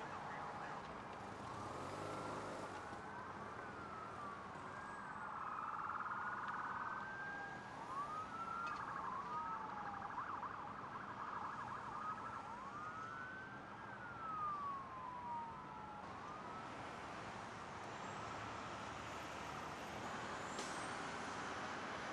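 Several emergency-vehicle sirens sounding at once, overlapping wails rising and falling in pitch with stretches of fast yelping, over a steady background hiss of traffic.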